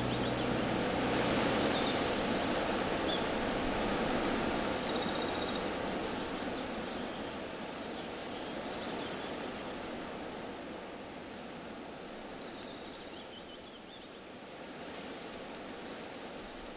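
Outdoor nature ambience: a steady rushing hiss with small birds chirping and trilling now and then, slowly fading out.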